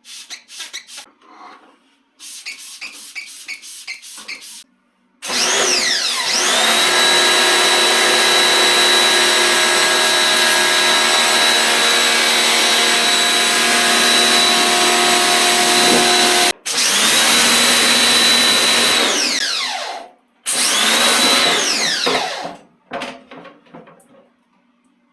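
Small electric motor, like that of a power tool or a cleaning machine, in short bursts at first. It then spins up with a rising whine and runs steadily for about eleven seconds, stops briefly, and runs twice more for a few seconds each.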